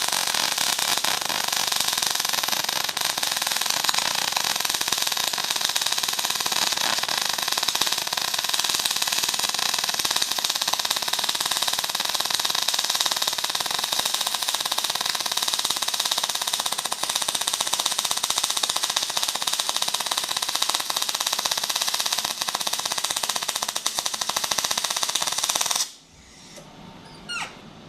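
Magmate 150 MIG welder's arc crackling steadily on heavy steel plate for about 26 seconds, then stopping abruptly. The wire speed is too fast and the arc too cold for the 0.9 mm wire, and the welder finds the feed seems to slow down by itself during the run.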